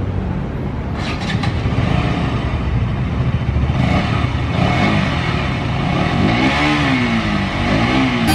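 Motorcycle engine running, revved up and back down twice near the end.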